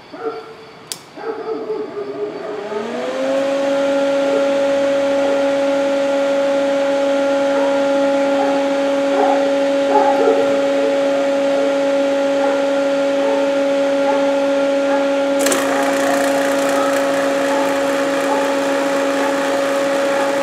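Robinair 15600 rotary-vane vacuum pump, fitted as the replacement pump in a Robinair Cooltech 34134Z A/C recycling machine, starting up to pull a vacuum: a click, then a rising whine as the motor spins up about three seconds in, settling into a steady hum. About fifteen seconds in, a hiss abruptly joins the running pump.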